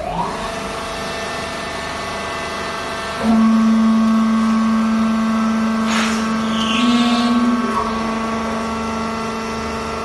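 Vertical fibre baler's hydraulic power unit running with a steady machine hum that starts abruptly. About three seconds in a louder, deeper steady tone joins it, and its pitch shifts briefly before easing back near eight seconds.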